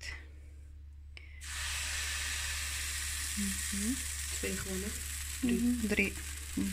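Pancake batter sizzling in a hot, lightly oiled nonstick frying pan: the sizzle starts suddenly about a second and a half in, as the batter hits the pan, and then holds as a steady hiss.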